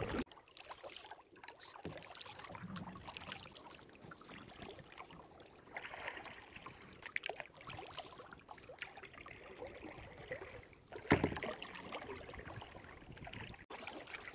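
Kayak paddling: the paddle dipping and splashing in calm creek water, with small drips and trickles between strokes, and one sharp knock about eleven seconds in.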